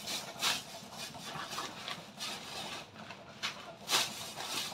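Clear plastic bags of candlenuts being handled, crinkling and rustling in several short bursts.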